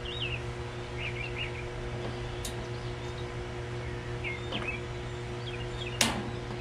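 Songbirds chirping in short, quick calls over a steady low hum, with a sharp click about six seconds in.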